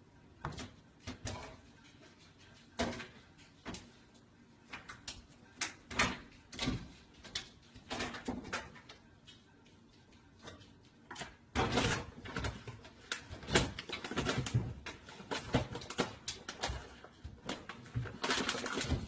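Cat scrabbling and clambering on a microwave and an open kitchen cabinet: scattered knocks and scrapes of claws and paws, sparse at first and much busier from about halfway.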